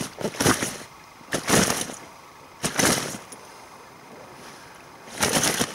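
A large mirror carp flapping on a wet unhooking mat: a handful of short, wet slaps, spaced unevenly, with a quiet stretch before a final cluster near the end.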